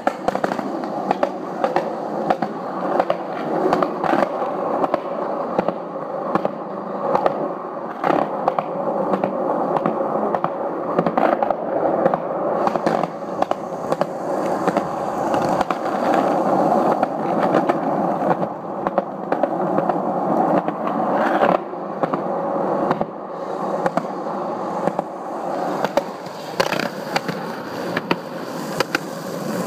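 Hard skate wheels rolling fast over a concrete sidewalk: a steady rumble with frequent sharp clicks.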